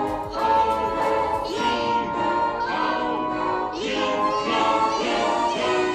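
Background music with singing voices, sustained pitched notes that bend and glide.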